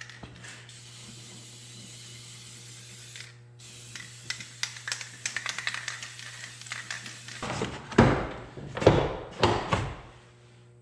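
Aerosol spray can hissing in two long bursts into a pickup's door latch, with clicking from the latch mechanism during the second burst. Several heavy thumps follow near the end.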